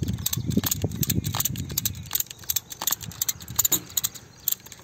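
Ratchet wire tightener being worked on a tomato trellis wire: quick, irregular metallic clicks and clinks from the ratchet and wire. A low rumble runs under them for the first two seconds.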